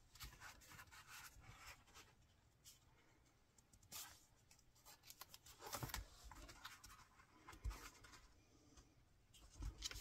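Faint rustling and rubbing of card stock under hands as a layered paper piece is slid into line and pressed flat, with a few soft knocks on the table, the loudest a little before the middle and near the end.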